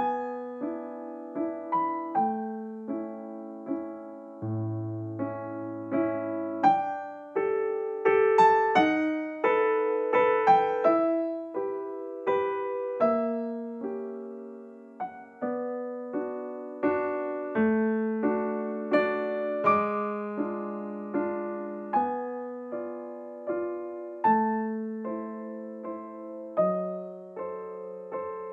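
Background piano music: a gentle melody of single notes, each struck and fading.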